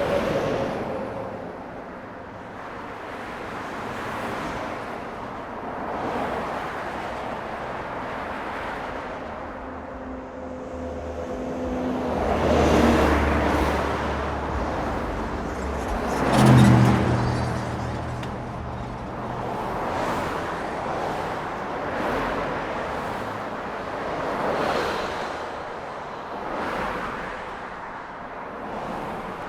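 Road traffic: vehicles passing one after another, each swelling up and fading away. The loudest pass comes about two-thirds of the way in, a vehicle with a low engine hum.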